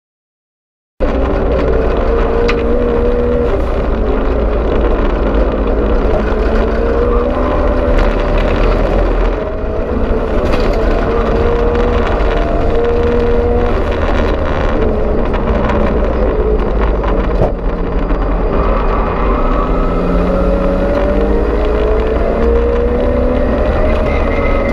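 Nissan Skyline R31 race car's engine heard from inside the cabin, driven hard on a circuit, starting about a second in. Its pitch rises and falls as it revs up through the gears and drops for corners, over a heavy low rumble and road noise.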